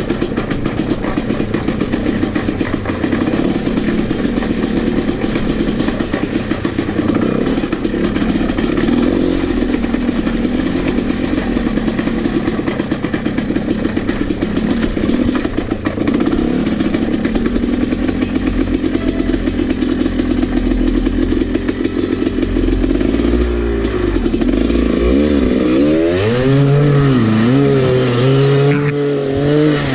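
Dirt bike engine running steadily at low revs while riding over rock and shallow water; over the last several seconds the revs rise and fall repeatedly with throttle blips.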